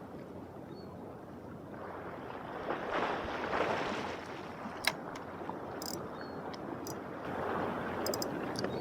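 Sea water washing in swells against a harbour breakwater, with wind on the microphone and a few small sharp clicks.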